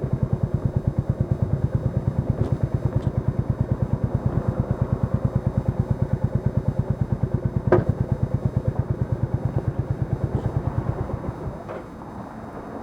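Royal Enfield Classic 350's single-cylinder engine idling with an even, slow thump of about eight beats a second, with one sharp click about eight seconds in. The engine dies away near the end, as when it is switched off.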